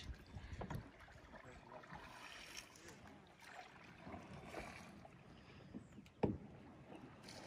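Faint kayak paddling on calm water: soft, irregular paddle splashes and drips, with one sharper knock about six seconds in.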